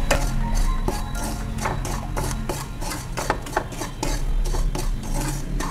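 A spoon stirring and scraping semolina as it roasts in ghee in a kadai, in short repeated strokes, roughly two a second.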